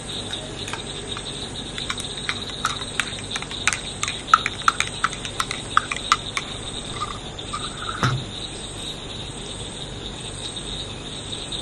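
Night chorus of crickets and frogs: a steady high cricket trill under many short frog clicks and chirps, which are thickest in the first seven seconds. One thump about eight seconds in.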